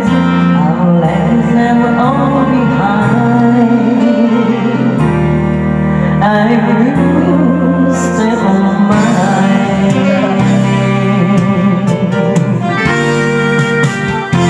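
A woman singing karaoke into a microphone over a recorded instrumental backing track.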